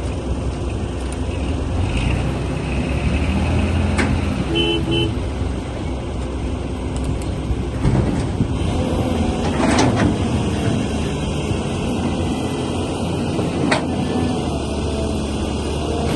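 Heavy machinery engines running steadily, with two short beeps about four and a half seconds in and a few sharp clicks or knocks.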